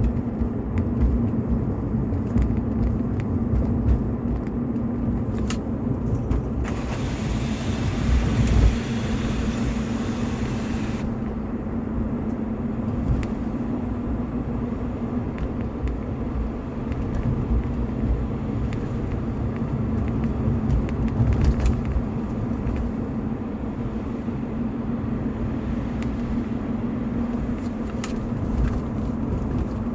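BMW E46 320i's 2.0-litre M52TU B20 inline-six running steadily with an even rumble. A hiss rises over it from about seven seconds in and stops about four seconds later.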